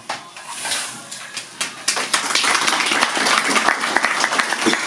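Audience applauding: a few scattered claps, then dense clapping from about two seconds in.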